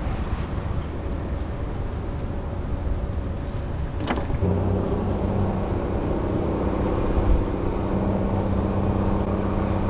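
Small boat's motor running under a steady low rush of wind and water. About four seconds in there is a sharp click, and the motor's steady hum then grows louder and clearer.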